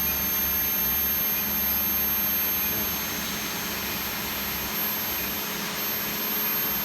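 Steady machinery noise in a workshop: an even rushing hiss with a constant low hum and a faint steady high whine.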